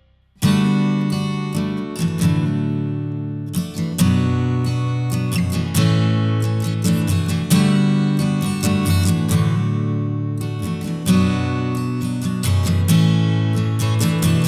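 Background music: strummed acoustic guitar chords in a steady rhythm, starting about half a second in after a brief fade.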